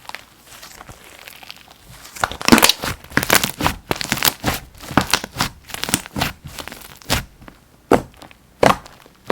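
Slime being squished and stretched by hand, with soft crackling at first, then a dense run of sharp clicking pops from its air bubbles, and a few single louder pops near the end.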